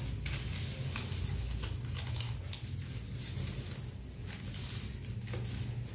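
Newspaper rustling and crinkling in several short bursts as it is folded and creased flat by hand, over a steady low hum.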